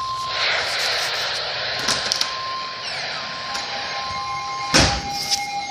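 Emergency alert broadcast for a severe thunderstorm warning: a steady high alert tone fades out, then a few seconds of hissing data noise, then steady tones again. A sharp click comes about five seconds in.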